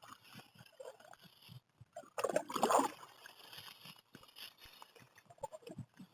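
Water sloshing and gurgling against a kayak's hull, with a louder slosh a little over two seconds in and scattered small knocks.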